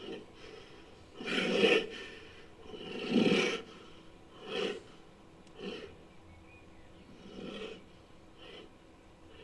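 Gorilla-like monster sound effect: a series of six noisy huffs. The first two are the loudest and longest, and shorter, fainter ones follow about a second apart.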